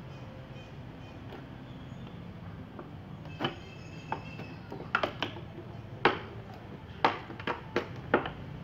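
Thin clear plastic bottle clicking and crackling as it is handled and poked with a heated screwdriver tip: about nine sharp, irregular clicks from roughly the middle on, over a steady low hum.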